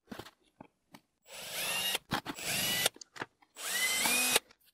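Cordless drill running in two bursts, its motor whine rising in pitch as it spins up, boring into the insulated wall of a heat-treating oven. There are a few light clicks of handling between the bursts.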